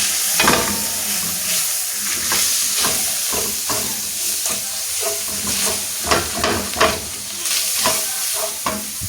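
Minced meat sizzling in a frying pan while a spoon stirs it, scraping the pan in many quick, irregular strokes over a steady frying hiss.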